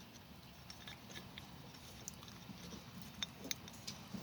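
A few faint, scattered clicks and light clinks of a timing chain being handled and worked onto the engine's sprockets.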